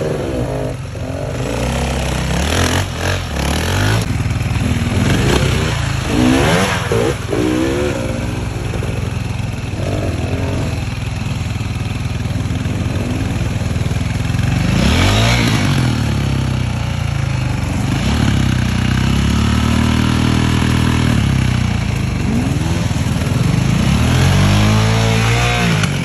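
Enduro motorcycle engine revved hard again and again, its pitch rising and falling in repeated bursts, with longer held revs in the second half. The bike is bogged in deep mud and being worked free.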